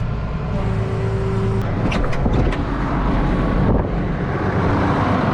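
Case IH tractor engine running steadily, with a steady whine that stops about a second and a half in and a few short sharp noises after it.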